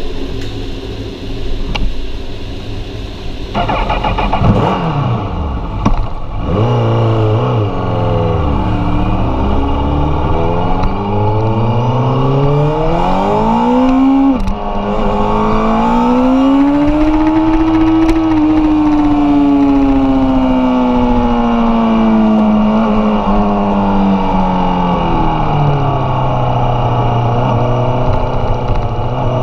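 Honda CBR1000RR Fireblade superbike's inline-four engine idling, then revving and pulling away a few seconds in. The revs climb, drop sharply at a gear change about halfway, then rise smoothly and slowly fall away.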